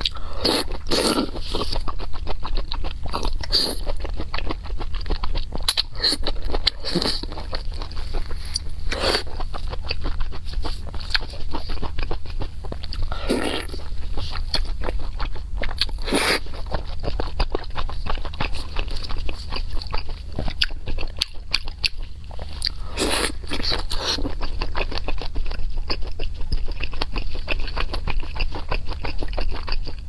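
Close-miked biting and chewing of sauce-coated skewered food, starting with a bite into a green chili pepper: sharp crunches every few seconds with dense small wet chewing clicks between, over a steady low hum.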